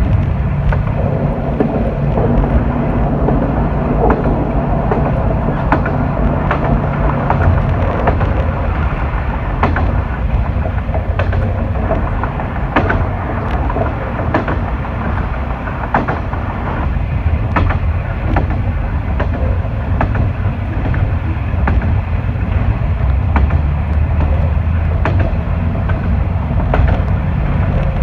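Diesel railcar running along the track: a steady engine drone that drops to a lower note about a quarter of the way through, with the wheels clicking over rail joints again and again.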